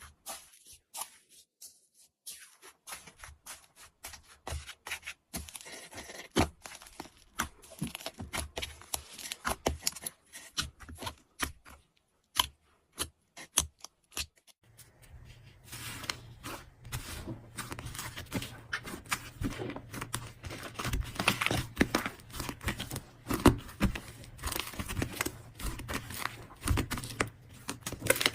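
Slime being handled, giving irregular sticky clicks and crackles, sparse at first and much denser from about halfway through.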